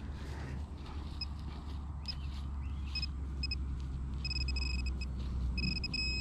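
Electronic beeps from a metal detector on a buried target: short separate beeps at first, then longer, nearly continuous tones near the end. A steady low rumble runs underneath.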